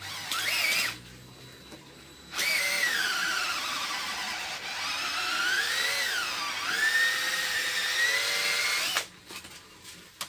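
Electric drill boring a hole through a piece of car tyre. A brief spin-up comes about half a second in, then a longer run of about six and a half seconds whose pitch drops and rises as the bit works through the rubber, stopping shortly before the end.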